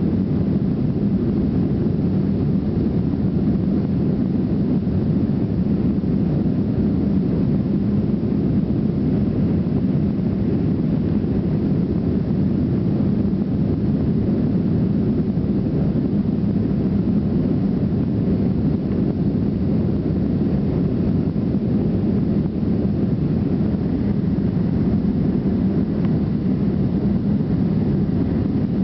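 Steady, loud rumble of an Avro RJ100's four turbofan jet engines at take-off or climb power, holding an even level with no rise or fall.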